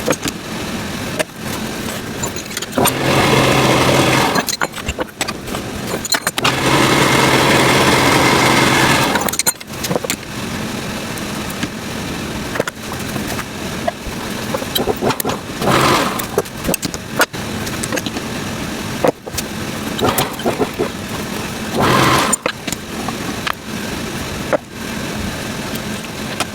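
Rebuilt coil tattoo machine buzzing. It comes on loud for a few seconds at a time, twice, with quieter buzzing and sharp clicks in between.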